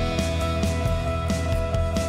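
Background music: an instrumental track with held notes over a steady beat.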